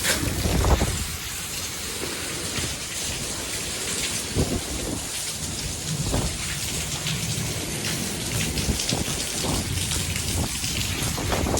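Monsoon thunderstorm: heavy rain pouring steadily, with short low rumbles surging through it now and then, the loudest about half a second in.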